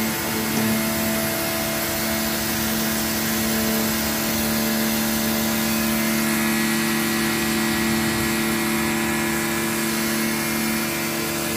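Pressure washer running steadily, its motor humming under the hiss of the water jet as the lance sprays into an inflatable paddling pool.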